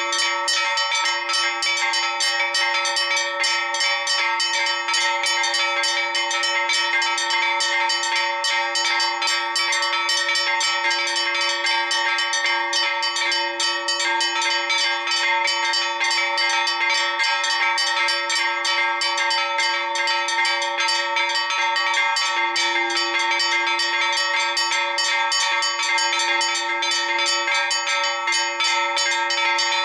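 Four church bells rung together in a fast, continuous festive peal, strike after strike overlapping with no pause, over the steady hum of the ringing bells.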